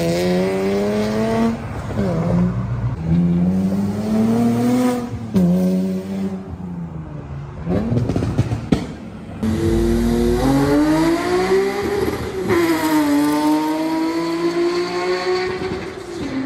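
Infiniti G37's VQ37 V6 through a loud aftermarket exhaust, revving hard. The pitch climbs for two or three seconds and then drops back, four or five times over, with a deep rumble underneath from about ten seconds in.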